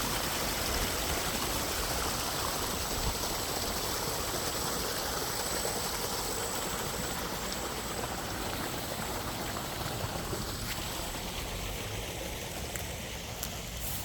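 Water running and splashing over a koi pond's waterfall: a steady rushing that eases slightly toward the end, with a thin high whine over it in the first half.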